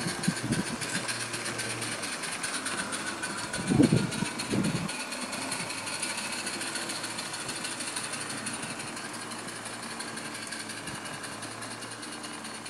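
Small gas-fired live-steam garden-railway locomotive running on its track, with a fast, even beat over a low hum and a couple of low thuds near the start and about four seconds in.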